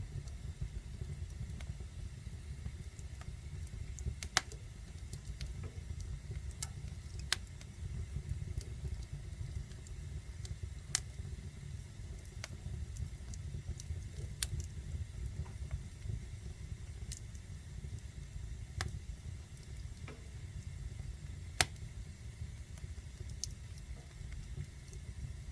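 Wood fire burning in a fireplace: a steady low rumble of the burning, with sharp crackles and pops every second or two, a few of them louder.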